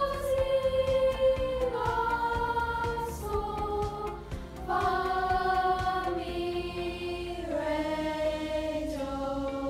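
A middle-school choir singing a slow descending scale in unison, holding each note for about a second and a half before stepping down to the next.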